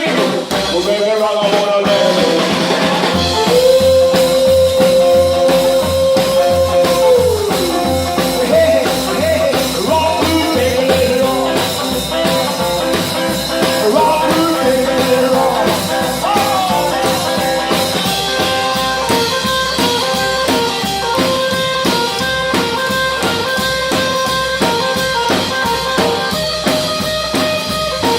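Live rockabilly band playing an instrumental break: a lead instrument holds and bends long notes over a stepping bass line and a steady drum beat.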